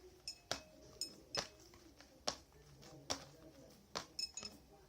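Irregular sharp clicks and clinks, about ten, some with a brief ring, from a stirrer knocking against the bowl while glue slime is mixed.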